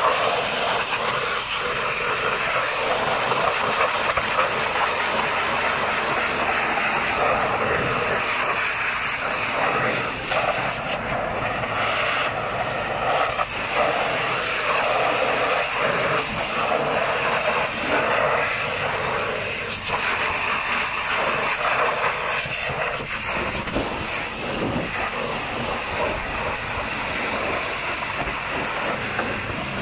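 High-pressure washer jet hissing steadily as it blasts mud off the wheels and tyres of a tipper semi-trailer, its sound wavering as the spray moves across rims, tyres and arches.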